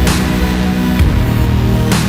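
Background music: an electronic track with heavy bass and a hit about every second.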